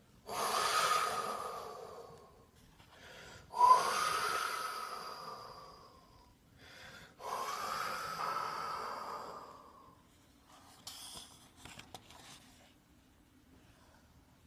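A man imitating the wind with his mouth: three long, breathy whooshes, each lasting two to three seconds with a faint hooting pitch that sags as it fades, the second starting most sharply. A few soft rustles follow near the end.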